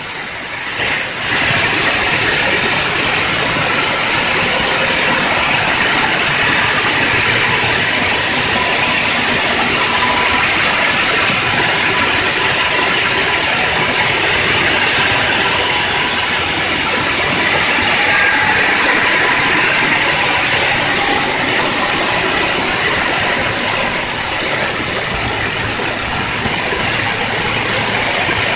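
Water-cooled diamond blade of a CNC bridge saw cutting through a stone block: a loud, steady grinding hiss with a faint whine from the blade.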